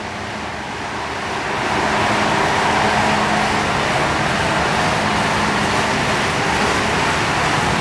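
Charcoal briquette mixer machine running, a drum mixing coconut charcoal powder with tapioca flour: a steady mechanical hum and rumble that grows louder over the first two seconds and then holds.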